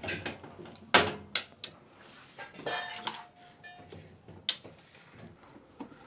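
Handling noise: a series of sharp knocks and clatters of hard parts being moved on the washing machine's cabinet, the loudest about a second in and another a little past the middle.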